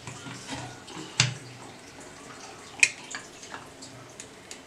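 Aluminium pressure cooker being handled on a gas stove: a sharp knock about a second in, a brighter metallic clink near the three-second mark, then a few small clicks, over a faint low hum.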